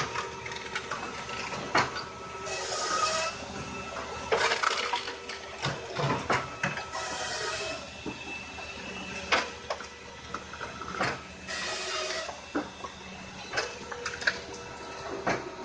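Tractor-driven Tajfun RC 380 firewood processor (saw-splitter) running under load: a steady machine hum with short hissing bursts every few seconds and many sharp knocks and clunks as it cuts and splits logs and pieces drop onto the chute.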